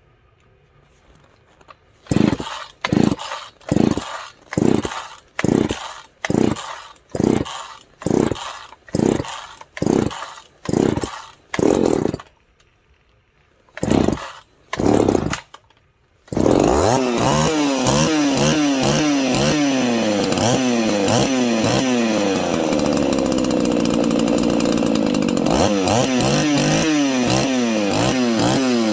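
Poulan 3400 two-stroke chainsaw, freshly ported with a machined base, being pull-started from cold: about a dozen short bursts roughly once a second, a pause, two more, then the engine catches about 16 seconds in and runs, revving up and down on its first run.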